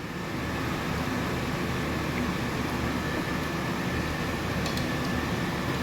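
A steady mechanical hum and rumble with a faint, steady high whine, and a few light clicks near the end.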